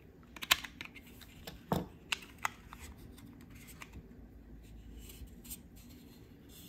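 Small sharp plastic clicks and scrapes of a thin pick prying apart the clipped plastic case of a Dragy GPS timer, the clips popping loose. The clicks bunch in the first two and a half seconds, the sharpest about half a second in, then only faint handling of the opened case.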